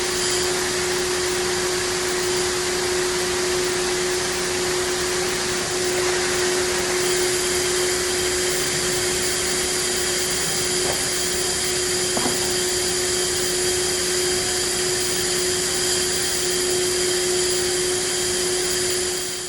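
A machine running steadily: an even rushing hiss with a constant hum.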